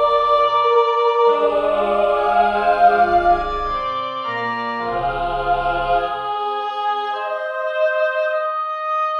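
Organ music: slow, sustained chords of a sacred piece, changing every second or two. About six seconds in the bass drops out, leaving the upper notes held.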